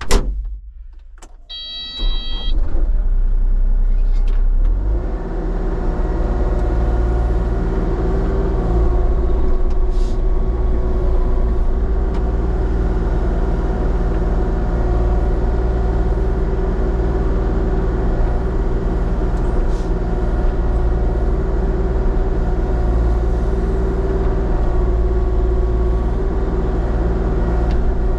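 A cab door shuts with a thump, a short electronic beep sounds, then a diesel engine starts about two seconds in and runs steadily, its speed coming up a little a few seconds later.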